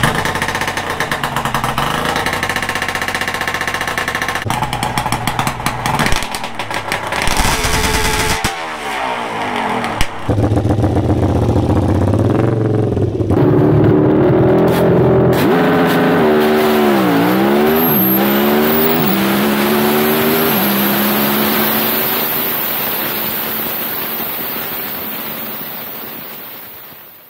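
Drag bike engine revving hard, then accelerating through several gear changes from about ten seconds in: the pitch climbs, drops back at each shift and climbs again, fading away near the end.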